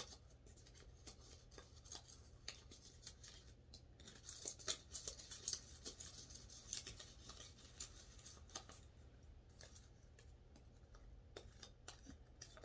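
Faint, irregular scratching and clicking of hands taking things out of small pots, busiest from about four to seven seconds in.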